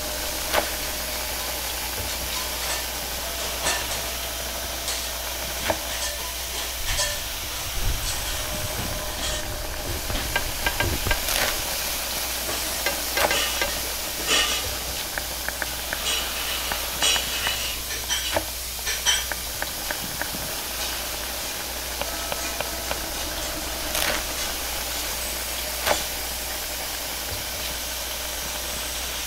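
Noodles stir-frying in a wok over a high gas flame: a steady hiss of flame and sizzling food, broken by frequent sharp clanks and scrapes of a metal utensil against the wok, busiest in the middle of the stretch.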